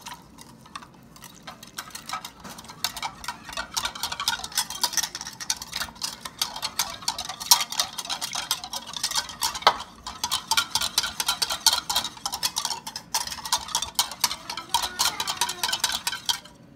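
Wire whisk beating cornstarch and cold water in a bowl, its wires clicking and scraping rapidly against the bowl, mixing a cornstarch slurry for thickening gravy. It picks up about a second in and stops suddenly near the end.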